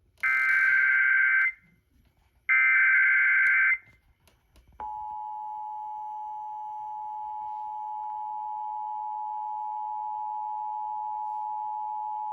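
Emergency Alert System broadcast over an FM radio. Two bursts of SAME digital header data, each a little over a second long, open the Child Abduction Emergency (Amber Alert) activation. About five seconds in, the steady two-tone EAS attention signal begins and holds unchanged.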